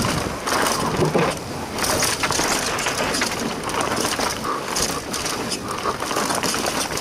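Mountain bike, a Mondraker Foxy Carbon RR 29, riding fast down a dirt forest trail, heard from a helmet camera: a constant noisy rush of tyres on dirt and roots, broken by frequent knocks and rattles from the bike.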